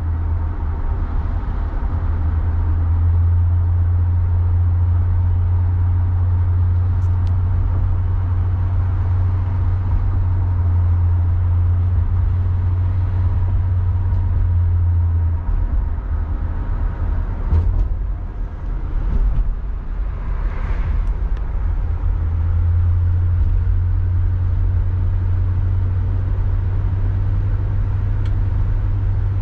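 In-cabin sound of a 1966 Ford Galaxie 500 convertible cruising with the top up: a steady low drone from its 352 V8 and the road. The drone eases off for several seconds past the middle, then comes back.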